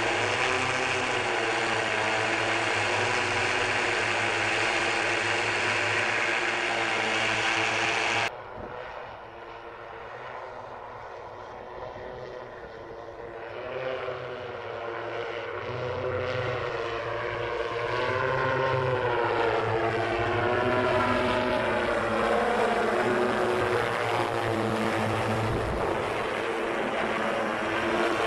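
Propellers and brushless electric motors of the eight-rotor Jetson One personal air vehicle whirring in flight: a steady, loud multi-tone drone close up for the first eight seconds or so. It then cuts suddenly to a quieter, more distant whir that grows louder from about the middle, its pitch wavering up and down as the craft approaches and hovers.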